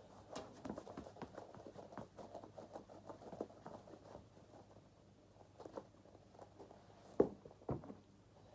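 Scattered soft taps and rustles of small movement and handling, with two sharper knocks about half a second apart a little after seven seconds in.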